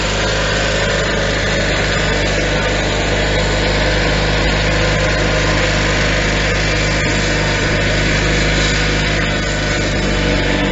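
Small garden-tractor engine running steadily at an even speed, a constant hum that does not change in loudness.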